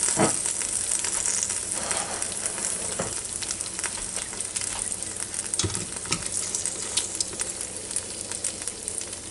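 Freshly air-fried chicken thighs and their drippings sizzling and crackling in the hot basket of an Instant Pot air fryer, slowly dying down, with a few knocks of metal tongs as the pieces are lifted out.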